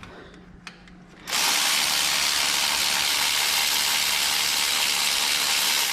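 A ratchet spinning out the front 17 mm starter mounting bolt, running steadily for about four and a half seconds from about a second in.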